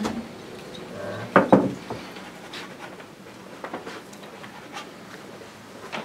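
Faint scraping and tapping of a palette knife and brush on the canvas and palette, with a couple of sharper knocks about a second and a half in.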